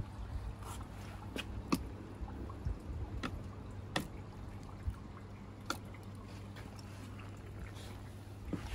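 Water dripping and trickling into a test barrel around an outboard motor's leg, with a steady low hum and a few scattered sharp clicks. No engine is running.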